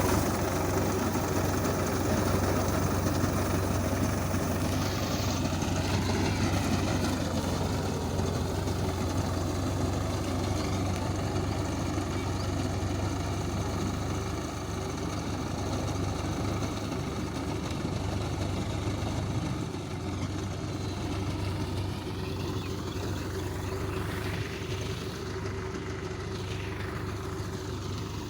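Engine of a wheat reaper-windrower running steadily with a deep hum while cutting the crop, its pitch sliding a little about five seconds in and again near the end.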